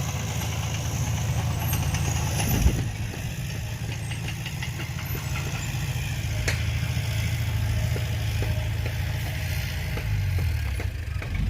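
Heavy diesel machinery engine running steadily at a low rumble, with one sharp knock about two and a half seconds in.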